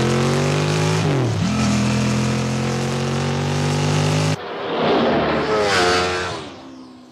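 A motor vehicle engine running loudly at a steady pitch. The pitch dips and climbs back about a second in, and the sound cuts off abruptly after about four seconds. A second engine-like sound follows, falling in pitch as it fades away.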